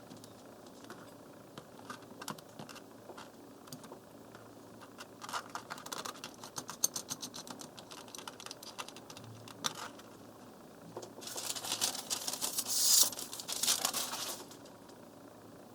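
Steel knife blade scraping over a water whetstone in two runs of quick strokes, the second louder, with scattered light clicks between.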